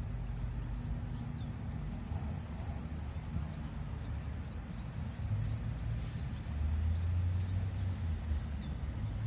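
Outdoor background: a steady low rumble that swells for a couple of seconds a little past halfway, with faint high bird chirps scattered throughout.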